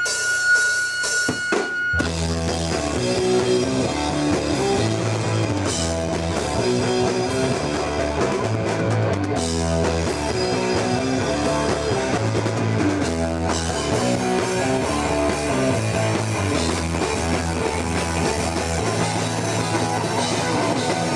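Live band with distorted electric guitar, bass and drum kit. A single held high tone sounds alone for about two seconds, then the full band kicks in and plays a driving song with no vocals.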